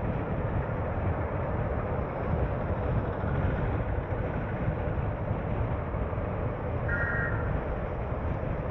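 Steady rumble of a car driving in city traffic, engine and tyre noise. A short, high horn beep sounds about seven seconds in.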